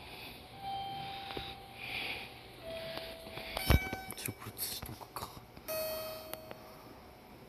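Three flat electronic beeps, each about a second long, with a single sharp click about halfway through.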